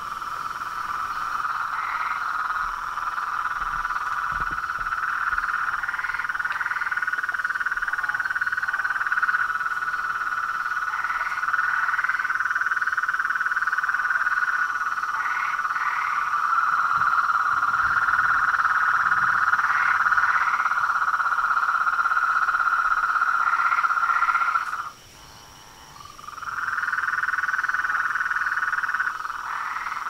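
Many frogs calling together in a dense, steady pond chorus, with a double chirp standing out about every four seconds. Near the end the chorus stops abruptly for about a second and a half, then starts up again.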